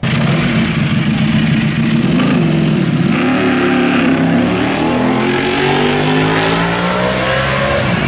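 Performance car engines accelerating hard and loud. About three seconds in a different engine takes over, and its pitch climbs steadily as it pulls.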